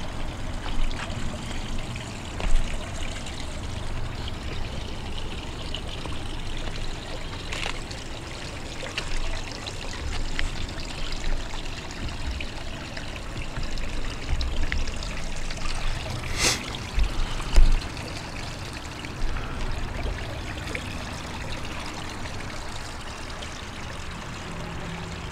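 A small creek trickling and splashing over rocks, a steady wash of water sound. Occasional low thumps come through, with a sharp click about sixteen seconds in followed by the loudest thump.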